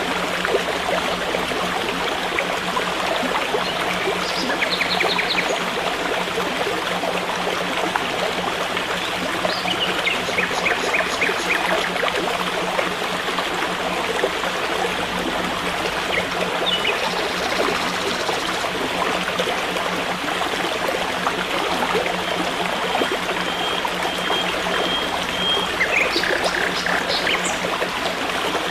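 A stream of running water, a steady rushing trickle, with birds chirping several times in short quick runs of repeated high notes.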